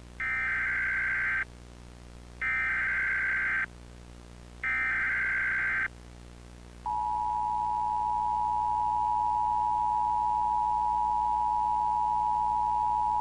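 Emergency Alert System tones: three buzzy bursts of SAME header data, each a little over a second long with a short gap between them. About seven seconds in comes the EAS attention signal, two clashing steady tones sounding together and held without a break.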